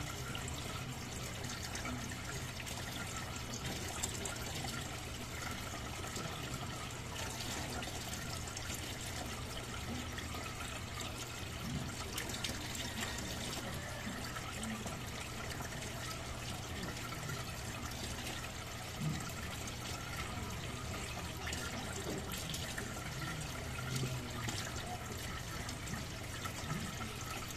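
Steady trickle and splash of water from a turtle tank's filter, with a constant low hum and a few soft knocks.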